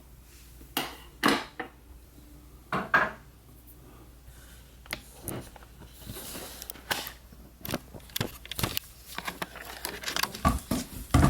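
Glass and tin candle containers clinking and knocking against each other and the desktop as they are moved and set down one by one: a few sharp knocks early, then a busier run of small clicks, ending with a heavier thud.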